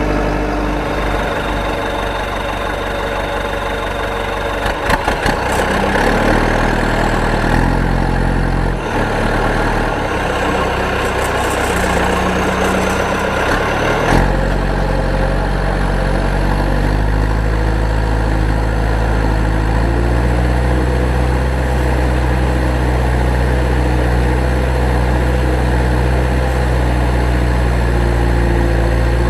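Engine-like idling drone that shifts pitch in abrupt steps through the first half, then holds steady, with a short knock about fourteen seconds in.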